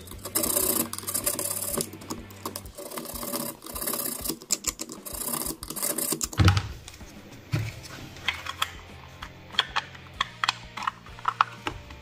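Small hand file rasping in quick back-and-forth strokes on the cut edge of a plastic hair-dryer housing, deburring the freshly cut notch. About six and a half seconds in there is a loud dull knock and a softer one a second later, followed by scattered light scrapes and clicks as the plastic part is handled.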